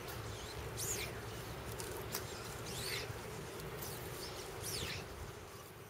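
Fly line swishing through the air as a fly rod is false-cast, three rising-and-falling whooshes about two seconds apart over a steady background hiss. The sound fades out near the end.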